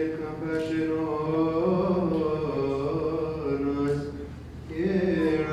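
Coptic Orthodox liturgical chant sung by male deacons' voices, long notes drawn out and sliding between pitches, with a short break about four seconds in before the next phrase starts.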